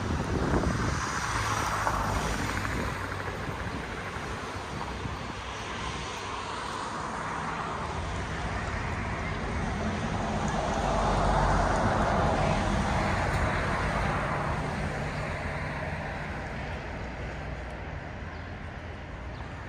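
City street ambience in which a motor engine passes by, rising to its loudest about eleven seconds in and then fading, over a steady outdoor hiss.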